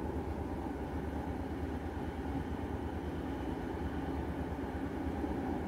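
Steady rumble and hum inside a BART train car as it runs along the track.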